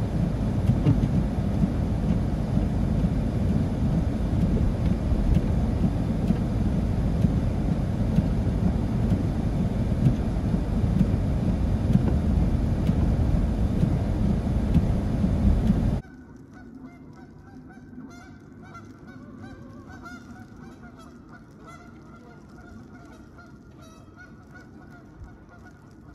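A loud, steady, low rumbling noise, then after a sudden cut about two-thirds of the way in, a flock of geese honking faintly with wavering calls.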